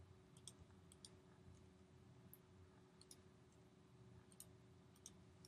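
Faint computer keyboard keystrokes: about eight short, soft clicks at uneven intervals, heard over near-silent room tone with a faint steady hum.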